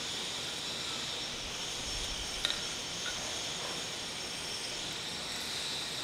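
A steady hiss, with one faint sharp click about two and a half seconds in.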